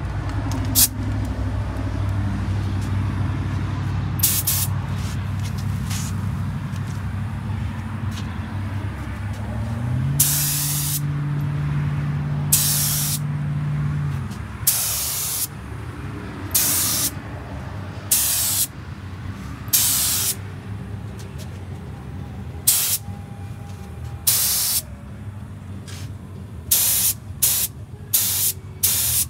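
Gravity-feed air spray gun laying down epoxy primer in short trigger pulls: a dozen or more bursts of hiss, each under a second, coming about two a second near the end. A steady low motor hum runs under the first half, rises in pitch about ten seconds in and fades out a few seconds later.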